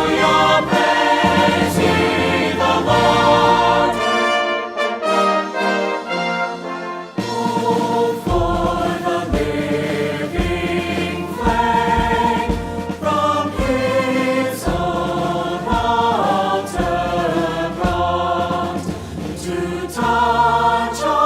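Worship music: a choir singing a hymn over instrumental accompaniment with a steady bass line. The bass drops out about four seconds in and returns about seven seconds in.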